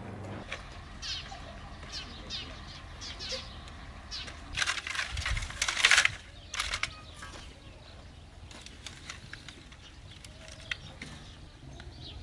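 Dry wooden sticks clattering and rustling as they are pulled from a bundle, in a cluster of loud crackling bursts about halfway through. Small birds chirp briefly before it.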